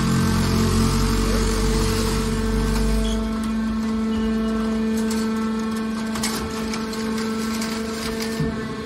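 Hydraulic scrap metal baler running as its ram pushes a compressed bale of scrap sheet metal out of the chamber: the motor and hydraulic pump hum steadily at one pitch. A heavy low rumble drops away about three seconds in, and a few short clicks come near the middle.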